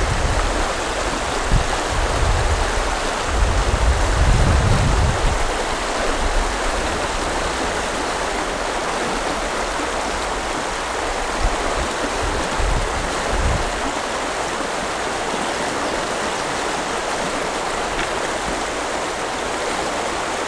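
West Gallatin River flowing, a steady rush of moving water, with a few low rumbles near the start, around four seconds in and again about thirteen seconds in.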